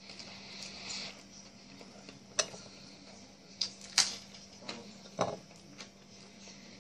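A person chewing fried chicken and pasta with a full mouth: a handful of short, wet mouth clicks and smacks, over a steady low hum.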